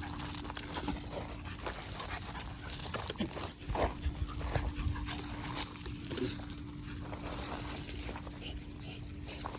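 Young American Pit Bull Terrier panting while she plays, with scattered clicks and scuffs through it and a faint steady hum underneath.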